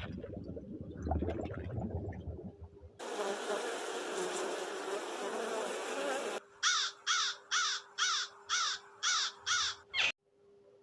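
A run of about eight harsh cawing calls, each falling in pitch and evenly spaced, typical of a crow. Before the calls comes a dense buzzing haze like a swarm of insects, and before that a low, rough rumbling noise.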